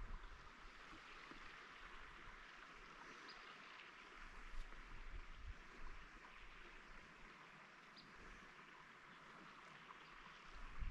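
Quiet outdoor ambience: a faint, steady hiss with a few brief, faint high chirps.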